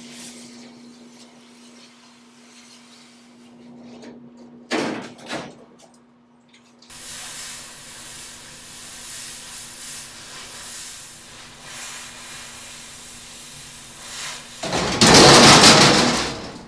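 Oxy-fuel cutting torch hissing as it cuts through rusted sheet steel. A short, loud rush comes about five seconds in, and a louder rush lasting about two seconds comes near the end.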